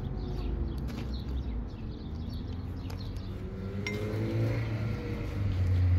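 A motor vehicle's engine running with a low hum that rises in pitch after about four seconds, just after a sharp click. Birds chirp in the first second.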